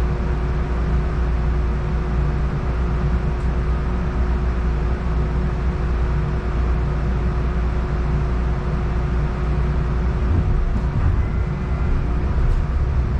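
Cabin hum of an Atlanta Streetcar (Siemens S70 tram) standing at a stop, with a steady drone and a constant tone from its onboard equipment. Near the end it begins to pull away.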